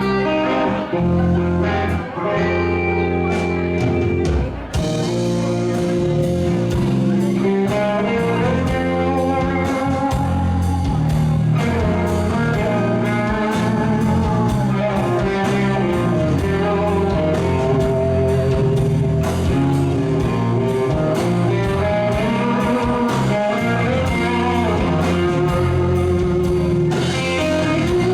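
A band playing an instrumental blues-rock passage led by guitar, with no singing. The texture is sparser at first, and a fuller part with a steady beat comes in about five seconds in.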